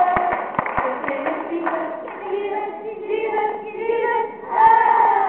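Group of young children singing a song together, clapping along in time for the first couple of seconds, then carrying on with the singing alone.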